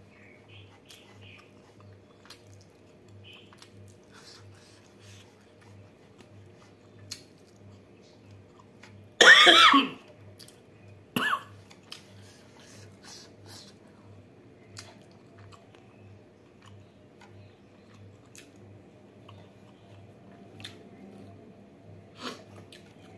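Soft chewing and light taps of fingertips on a wooden plate, broken about nine seconds in by one loud cough and a shorter cough about two seconds later. The coughing comes while she eats very spicy king chilli food.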